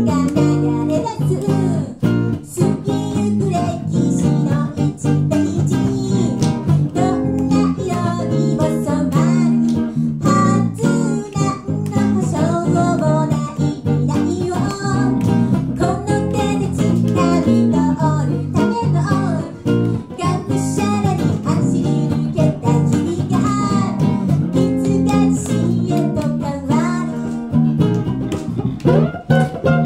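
Live music: two guitars, one of them acoustic, played together while a woman sings into a microphone.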